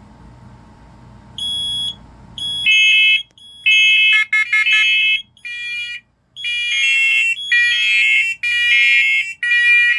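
Interconnected First Alert smoke and carbon monoxide alarms sounding in a system test. One alarm beeps about one and a half seconds in, then from about three seconds in several more join, their loud, piercing beeps overlapping at different pitches.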